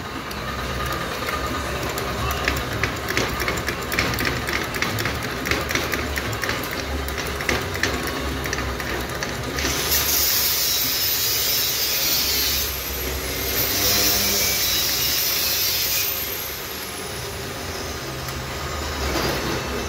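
Workshop sounds over a steady low hum: for several seconds a run of irregular metallic clicks and knocks as a hydraulic floor jack and the steel frame are handled. Then an electric power tool runs for about six seconds with a high whine, is switched off and whines down as it coasts to a stop.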